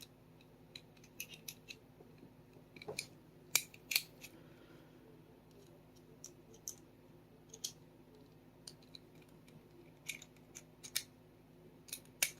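Small sharp metallic clicks and light scraping as a screwdriver works the trigger return spring into place in a Sig Sauer P365 frame, with a few louder snaps along the way.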